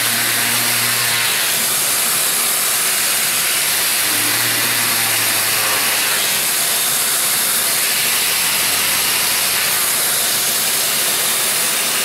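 Electric random orbit sander with a dust-extraction hose, running steadily as it sands the faces of laminated MDF parts: an even whirring hiss.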